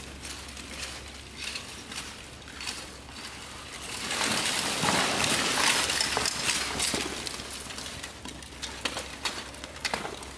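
Steel plate armour clinking and rattling as fighters in full harness move and spar, a scatter of sharp metallic clinks, with a louder, denser stretch of clatter for a few seconds in the middle.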